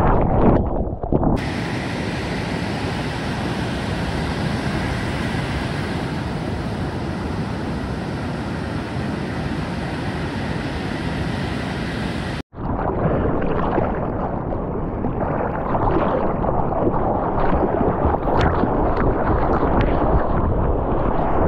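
Churning ocean water against a GoPro's housing for about a second. Then the steady wash of breaking surf, heard from the shore. Near the middle it cuts to water splashing and rushing past a board-mounted camera as it moves through whitewater.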